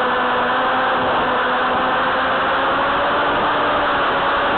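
Electric motor and propeller of a Firebird Stratos RC foam plane running steadily, heard from a camera mounted on the plane with wind rushing over the microphone. The hum rises slightly in pitch about three seconds in.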